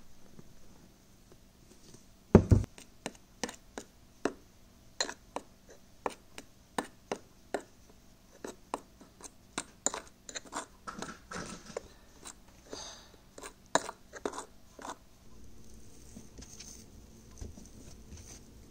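A heavy thump, then a metal fork clicking and scraping against a ceramic bowl, about one or two sharp clicks a second, as it mixes flour into a crumbly pastry dough. Near the end the clicks stop.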